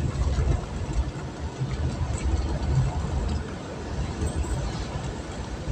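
A vehicle on the move: a steady, uneven low rumble of engine and road noise.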